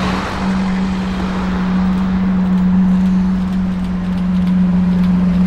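Road traffic: cars driving past at low speed with tyre and engine noise, over a steady low hum.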